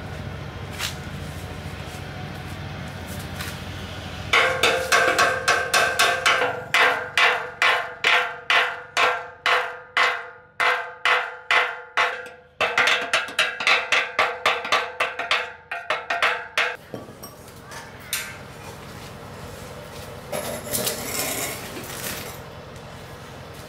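Hammer striking metal in a steady run of ringing blows, about two to three a second, with a brief pause partway through; a low steady rumble is heard before and after.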